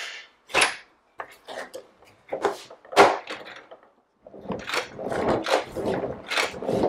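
Plastic toy car transporter truck knocking and clacking as it is handled, then rolling along a table from about four seconds in, its plastic wheels rumbling.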